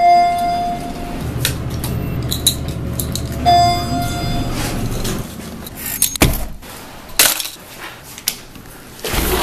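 Elevator chime sounding twice, one short steady tone at the start and the same tone again about three and a half seconds later, with a low hum between them. A few sharp clicks and knocks follow in the second half.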